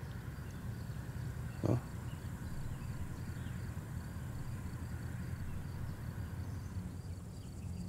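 Summer outdoor ambience: insects chirping faintly at about four a second over a low steady hum, with one short voice-like sound about two seconds in.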